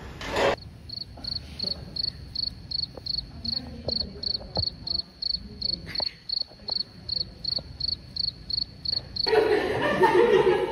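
Cricket chirping: a clean, even run of high chirps at about three a second, the stock 'crickets' effect for an awkward silence, which stops suddenly as classroom chatter comes in near the end. A short loud noisy burst comes right at the start.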